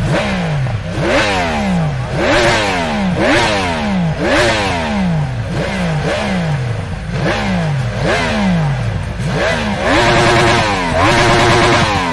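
Yamaha R1M's crossplane inline-four engine revved in quick repeated throttle blips about once a second, each rising sharply and falling back, then held high for over a second near the end.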